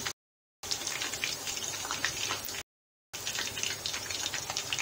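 Chicken wings deep-frying in hot oil: a steady sizzle full of small pops and crackles, cut off twice by brief gaps of total silence.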